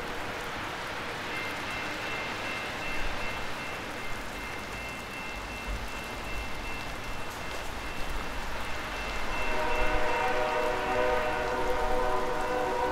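Level-crossing warning bell ringing steadily over the hiss of falling rain and wet snow; about two-thirds of the way through, an approaching locomotive's multi-note horn starts sounding and grows louder.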